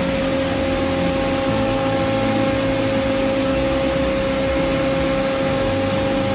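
Steady machinery drone of an industrial piston pump system running, a constant noise with several steady hum tones held throughout.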